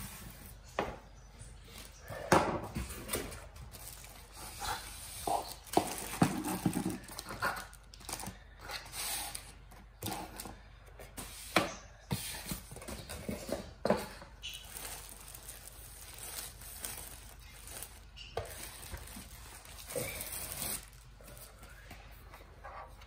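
Plastic bags and packaging crinkling and rustling, with irregular knocks and taps as a boxed projector, its bagged power adapter and cable, and a remote are unpacked and set down on a table.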